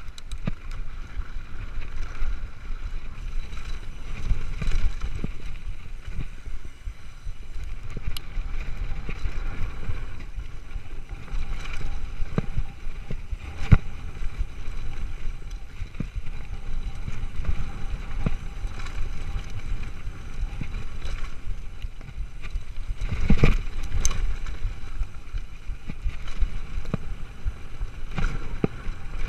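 Mountain bike descending a dirt and gravel downhill trail: steady tyre rumble and rattle of the bike, with wind on the microphone. Sharp knocks from rocks and bumps stand out, the loudest cluster about two-thirds of the way through.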